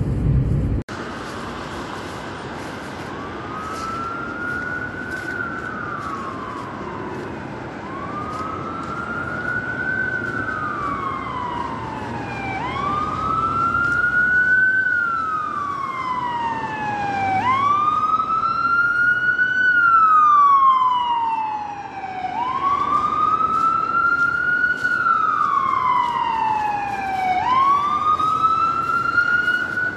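Emergency vehicle siren wailing: a slow rise and fall in pitch that repeats about every five seconds, growing louder as it approaches. Before it, a car's road rumble cuts off abruptly under a second in.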